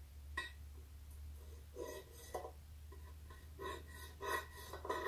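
Screwdriver tip scratching a marking line into a piece of scrap sheet steel: a handful of short, faint metal-on-metal scrapes with a slight ring, over a low steady hum.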